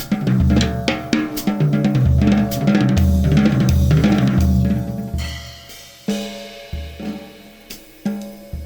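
Percussion music: drums and cymbals played busily over low pitched notes. About five seconds in it thins to single low pitched strikes that ring out, roughly one every three-quarters of a second.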